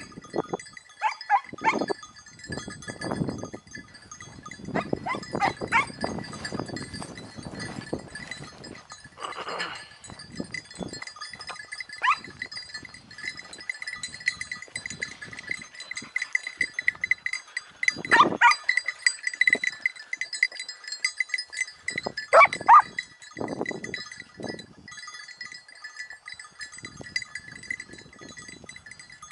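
Irregular animal calls, bleat- or yelp-like, with a bell jingling, over a steady high-pitched background; the strongest calls come about two-thirds of the way through.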